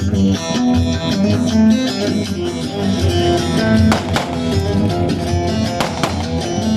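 Live Turkish folk dance music: an amplified saz (bağlama) plays a plucked instrumental melody over a steady pulsing bass beat.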